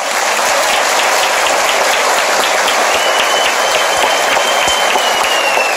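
A large audience applauding steadily just after the oath ends. A thin, high, steady tone joins about halfway through and sags slightly in pitch near the end.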